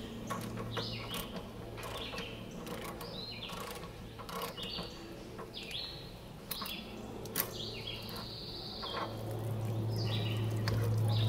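Socket wrench ratcheting in short clicks as the old anode rod is unscrewed from an RV water heater, with birds chirping repeatedly. A low steady hum grows louder over the last couple of seconds.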